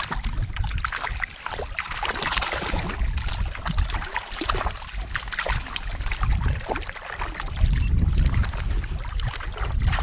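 Wind buffeting the microphone over water sloshing around a kayak on choppy sea, with scattered small clicks and knocks of gear being handled.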